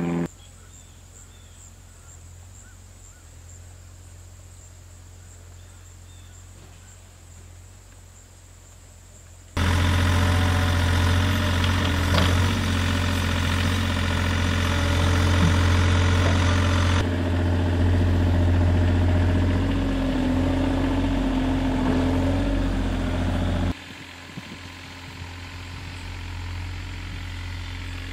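Mini excavator's diesel engine running loud as it digs the trench for the wood boiler lines. A much quieter, steady engine hum fills the first third and the last few seconds.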